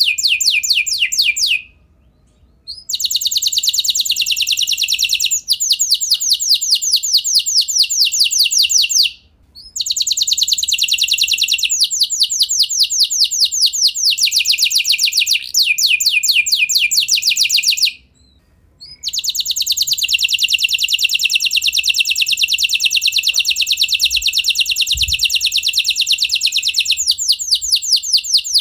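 Yellow F1 canary singing in long rolling trills of rapid repeated high notes. The song breaks off briefly about 2, 9 and 18 seconds in, then starts again.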